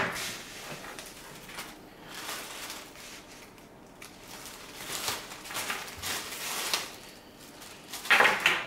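A plastic bag crinkling and bundled wiring cables with plug connectors rattling as they are handled and pulled out of the bag. It comes in irregular bursts, loudest near the end.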